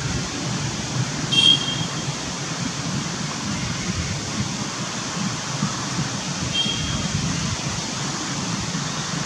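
Steady outdoor background rush, like wind on the microphone, with two brief high chirps, one about a second and a half in and another past the middle.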